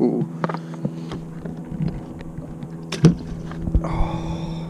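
Steady low hum from the boat's motor, with scattered knocks and clicks from handling gear and a fish in the boat, the loudest knock about three seconds in.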